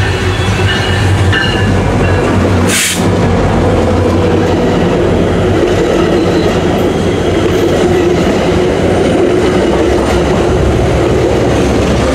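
A MARC commuter train, led by its MP36PH-3C diesel locomotive, passes at speed close by: the locomotive's engine hum, then the steady rumble and clacking of its bi-level coaches' wheels on the rails, blended with a loaded coal train's hoppers rolling on the next track. A short hiss about three seconds in.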